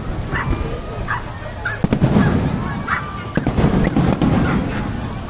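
Aerial fireworks bursting in a run of deep booms and sharp cracks, with several short, high-pitched honk-like calls over them.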